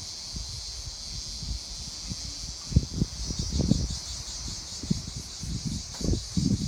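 Cicadas buzzing in a steady high hiss that pulses faintly from about three seconds in, with low thumps and rumbles on the phone's microphone.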